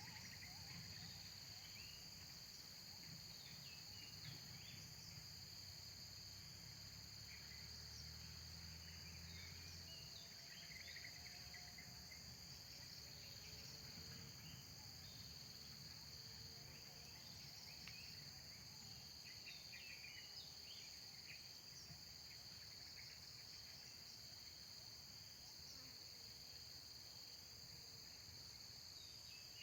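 Faint, steady, high-pitched drone of insects, with scattered short high chirps from birds.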